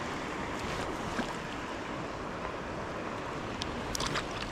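Stream water rushing steadily, with a few brief splashy clicks near the end.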